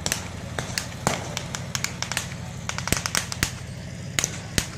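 Scattered blank gunfire from reenactors' small arms: about a dozen sharp cracks at irregular intervals, some loud and some distant, over the low, steady running of a half-track's engine.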